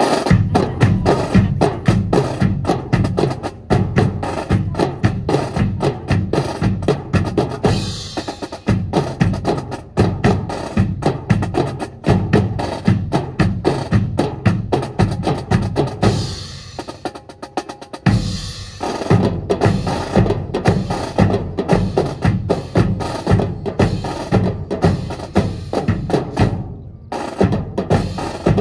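Drum corps playing a fast, continuous cadence on snare and bass drums, with dense rapid strikes. The playing thins out briefly about two-thirds of the way through, then comes back in full.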